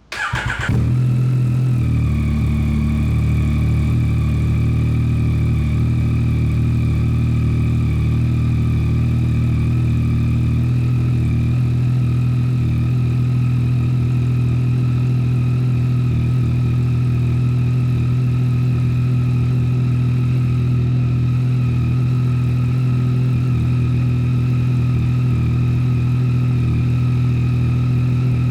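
2022 Yamaha Tracer 9 GT's 890 cc inline-three firing up on a cold start through an unbaffled Akrapovic full exhaust, with a brief flare as it catches, then settling into a loud, steady idle.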